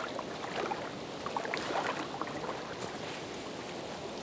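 River water rushing steadily, with quick gurgles and splashes in the first half.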